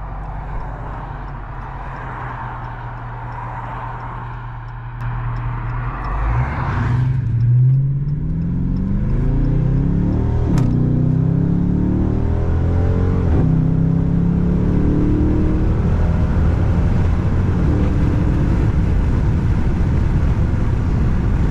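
Dodge Charger R/T's V8 engine idling, then accelerating hard about six seconds in, its pitch climbing and dropping back twice as the transmission shifts up, then droning steadily at cruising speed. Heard from inside the car.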